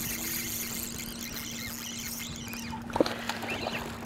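Steady low hum aboard a bass boat, with a hiss of wind and water. About three seconds in there is a sharp knock, followed by splashing as a hooked bass is played beside the boat.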